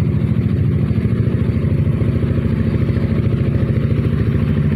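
Maxi-scooter engine idling steadily, an even, unchanging chug.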